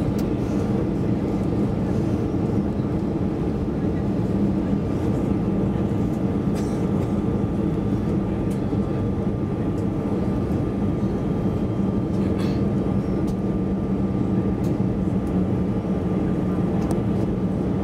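Steady cabin noise inside an Airbus A320-216 on approach, heard from a seat beside the wing: the CFM56 engine running with a constant low hum and a thin steady whine, over a rush of airflow. A few faint clicks.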